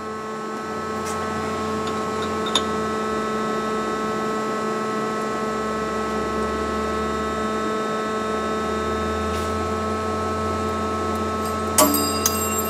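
Steady electrical and mechanical hum of a powered-up CNC lathe, made of several steady tones over a low rumble. A sharp metallic clink with a brief ring comes near the end as the tailstock adjustment is worked by hand.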